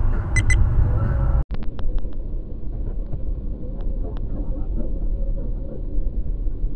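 Car driving: a steady low rumble of road and engine noise with a few sharp clicks. The sound cuts out for an instant about one and a half seconds in and comes back duller.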